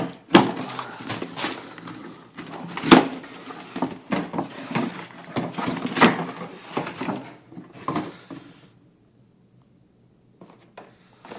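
Packaging and parts being handled: knocks, clatter and rustling as the boxed RC car is taken up and looked over. The sound stops for over a second near the end.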